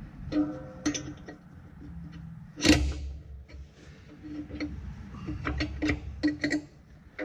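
Metal clicks and clanks of a closing-wheel spring being levered onto a John Deere 7000 planter's closing wheel arm. One loud clank comes about two and a half seconds in, and a quick run of sharp clicks comes near the end.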